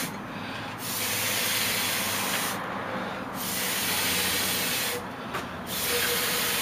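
Mouth atomizer blown by mouth, spraying a thin Liquin-and-Gamsol mix as a fixative over charcoal lines. Long breathy hisses, one ending as the sound begins and three more starting about a second in, at three seconds and near six seconds, with short pauses for breath between.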